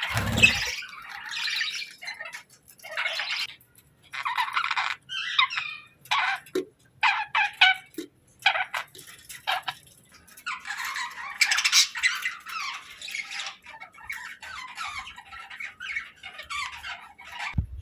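Budgerigars chirping and chattering in short bursts with brief pauses, the chatter thickening in the second half. A brief low thump at the very start.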